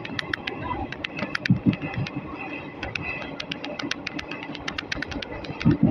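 Running noise inside an Indian Railways ICF passenger coach in motion. A steady rumble is broken by many quick, irregular sharp clicks and rattles from the coach and its fittings.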